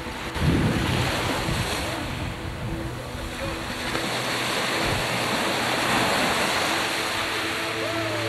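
Surf breaking and washing over rocks along the shore, with gusts of wind buffeting the microphone. The wind is strongest about half a second in.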